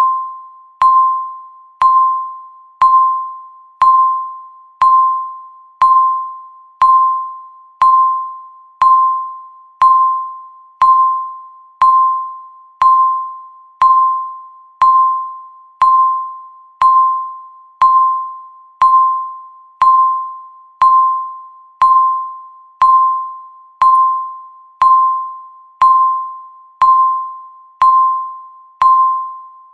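Countdown timer beep repeating once a second: a single clear electronic tone that starts sharply and fades away before the next one, about thirty times.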